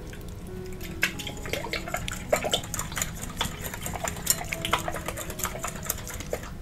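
Coil whisk beating raw eggs in a glass bowl: a quick run of clicks and scrapes as the metal spring strikes the glass, starting about a second in and stopping near the end. Quiet background music plays underneath.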